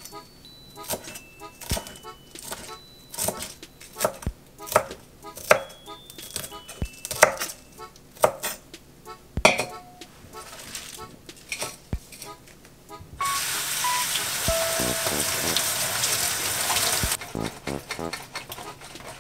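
Kitchen knife chopping spinach on an end-grain wooden cutting board, in sharp, irregular knocks. About two-thirds of the way in, a sink tap runs steadily for about four seconds as the spinach is rinsed in a stainless steel colander, followed by light clattering.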